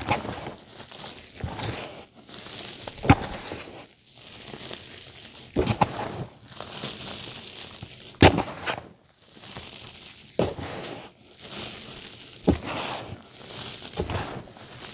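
Gloved hands crushing and crumbling reformed gym chalk in a tray. Sharp crunches come about every two to three seconds, with the soft hiss of powder sifting and pouring between them.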